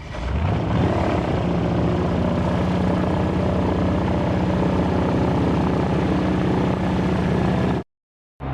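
Airboat's engine and big air propeller revving up over the first second, then running steadily at high power. It stops abruptly near the end.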